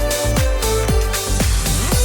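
Electronic dance background music with a steady four-on-the-floor kick drum, about two and a half beats a second, under held synth tones; near the end a rising noise sweep builds up.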